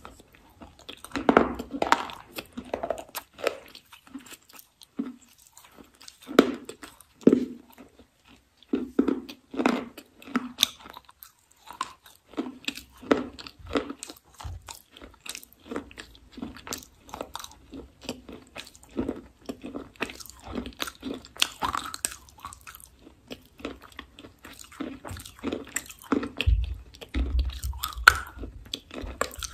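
Close-miked biting and chewing of a hard, crumbly pink slab: repeated sharp crunches in irregular clusters with short pauses between bites, and a brief low rumble near the end.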